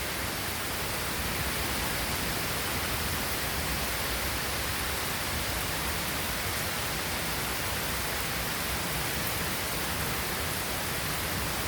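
Heavy thunderstorm rain in a steady downpour, an even hiss throughout with no thunder.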